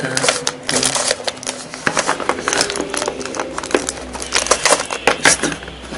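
Plastic 3x3 Rubik's cube being turned quickly by hand, its layers giving a fast, uneven run of clicks and clacks.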